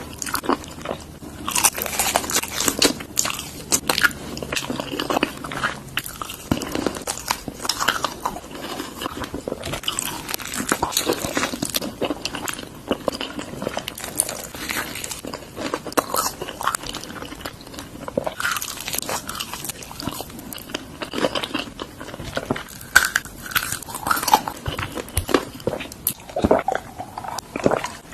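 A person eating crunchy food close to the microphone, as in mouth-sound ASMR: a continuous run of irregular crisp bites, crunches and chewing.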